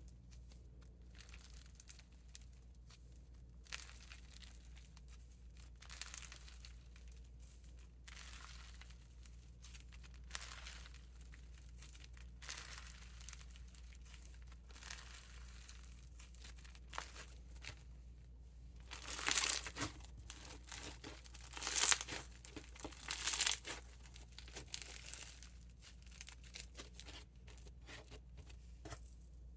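Bingsu slime, thickly packed with small plastic beads, being stretched and squeezed by hand. The beads give a soft, scattered crackling, with louder bursts of crunching about two-thirds of the way through.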